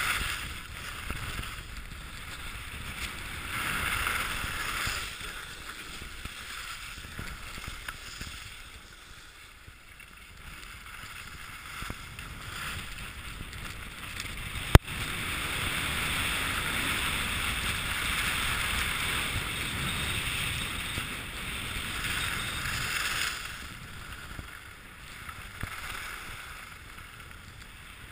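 Skis sliding and carving on packed snow, with wind rushing over the camera microphone. The scraping hiss swells about four seconds in and again from about fifteen to twenty-three seconds in, and a single sharp click comes just before the second swell.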